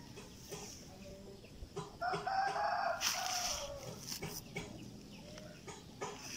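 A rooster crows once: one pitched call about two seconds long starting about two seconds in, ending on a falling note. Light knocks and rustles from handling come and go around it.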